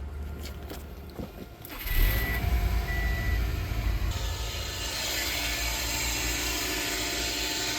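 2006 Subaru Impreza WRX engine starting a little under two seconds in and running steadily after a few faint clicks, with two short beeps just after it starts. Its strange running noise comes from a failing serpentine belt tensioner.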